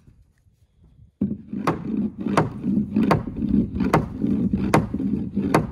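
Framing hammer driving a nail into a wooden wall stud: six sharp blows, evenly spaced about three-quarters of a second apart, starting a little over a second in, over a steady low rumble.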